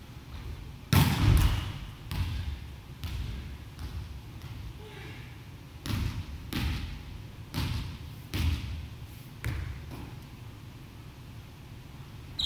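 Volleyball being struck and bouncing on a wooden gym floor: a run of sharp smacks and thuds about once a second, echoing in the hall, the loudest about a second in.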